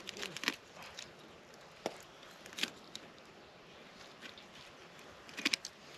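Scattered light knocks and clicks of a folding camp chair being handled and set out, with a quick cluster of clicks near the end.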